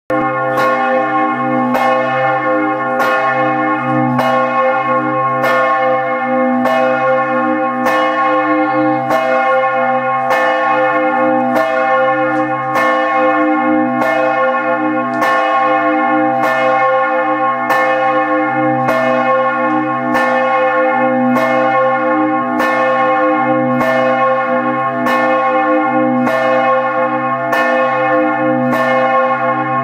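The church bell 'La Misericordia' in Giotto's Campanile ringing, with an even strike about every three-quarters of a second. Each note rings on into the next.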